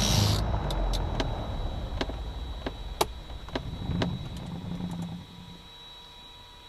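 Cessna 310 twin-engine airplane shutting down at the fuel pumps: the engines' low rumble winds down and stops about five seconds in, with a string of sharp clicks along the way. A faint steady high whine is left afterwards.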